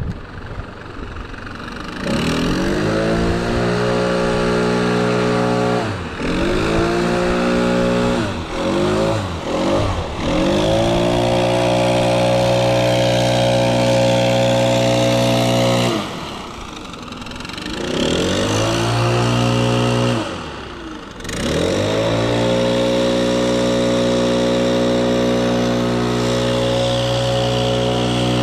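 Gas backpack leaf blower running at full throttle with a steady high-pitched drone. The throttle is let off several times and the engine revs back up each time.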